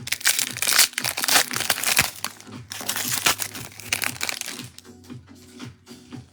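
Foil trading-card pack wrappers being torn open and crumpled, a dense crinkling that is heaviest for the first four seconds or so and then thins out, over background music.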